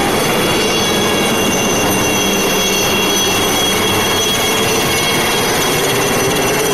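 Military helicopter flying low overhead: the steady whine of its turbine engine over a loud, even rushing noise.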